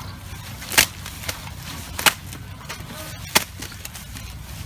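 Three sharp cracks, evenly spaced about a second and a quarter apart, over a low steady rumble.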